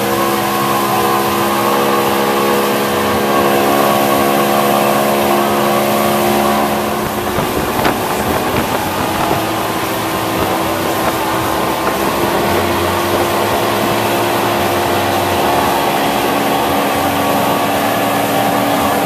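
Motorboat engine running steadily at speed while towing an inner tube, over the rush of water in the wake. The engine note shifts slightly about seven seconds in.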